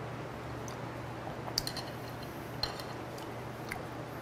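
A few light clicks of metal chopsticks against a plate as raw stingray slices are picked up, spaced about a second apart over a steady low hum.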